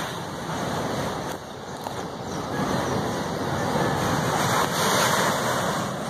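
Volcanic gas jetting out of a newly opened Kilauea fissure with a steady rushing roar, its flames like a blowtorch; the roar swells from about two seconds in.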